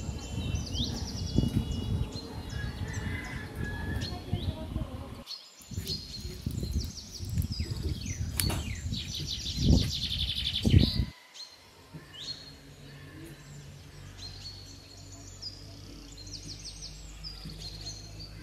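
Small birds chirping in quick repeated trills throughout, over a low rumbling noise with a few knocks near the middle. About eleven seconds in the rumble drops away, leaving a faint low hum under the chirps.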